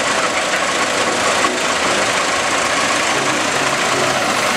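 Inline car engine mounted open in the hull of a motorized river raft, running steadily while the raft is under way.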